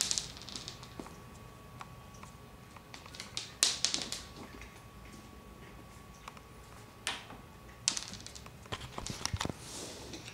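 Dry cat kibble clicking and skittering on a hard wooden floor as it is tossed and chased, a scatter of small sharp taps with a few louder clicks about 3.5, 7 and 8 seconds in.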